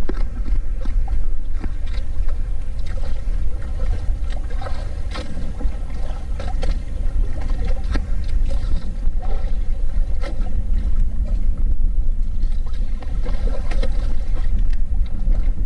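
Water splashing and lapping at the side of a small wooden outrigger boat as a hooked fish is hauled in on a handline, with scattered small knocks, over a steady low drone.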